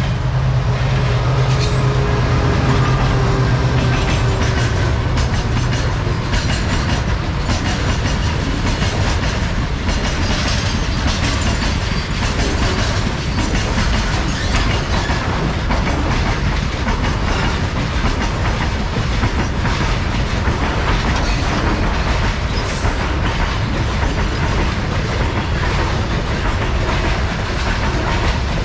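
A WDG4G diesel-electric locomotive's GE twelve-cylinder engine drones loudly as it passes close by for the first several seconds. Then a long rake of covered freight wagons rolls past, its wheels clacking steadily over the rail joints.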